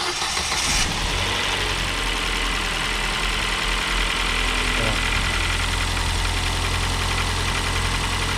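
Ford New Fiesta petrol engine, just started cold: it runs a little higher for about a second, then settles into a steady idle. Under the idle is an annoying light tapping that the mechanic likens to valve lifters or the camshaft; the engine is belt-driven, so the noise comes from inside the engine itself.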